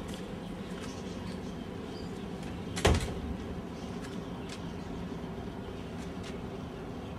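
Steady low hum with one sharp knock about three seconds in, and a few faint clicks.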